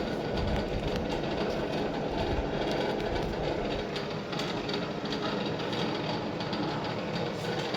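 Train running along the track: a steady rumble of wheels on rails with faint clicks.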